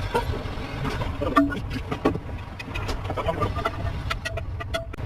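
A workshop machine running with a steady low hum, with scattered short metallic clicks and taps.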